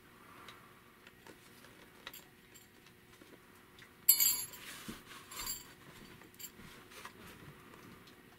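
Handling a VHS tape, a plastic cassette in a cardboard sleeve. A sudden sharp rustle comes about four seconds in, then light clicks and rustles, with faint room tone between them.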